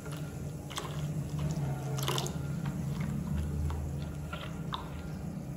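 Milk pouring in a thin stream into a glass bowl of thandai paste while a silicone spatula stirs, with scattered light clicks from the spatula against the glass. A low steady hum runs underneath.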